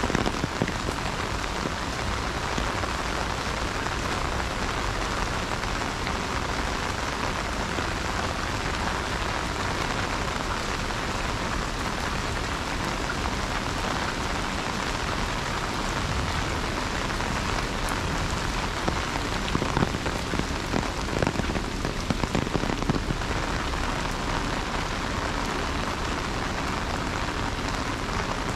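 Heavy rain hitting an umbrella overhead: a dense, steady patter. About two-thirds of the way through, a few seconds of louder, sharper hits stand out.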